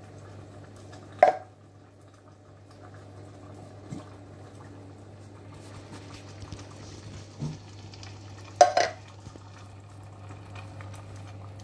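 Tinned plum tomatoes being tipped from a can into a saucepan and worked with a wooden spatula, with two sharp knocks on the pan, about a second in and again about three quarters of the way through, and a few softer taps and scrapes between.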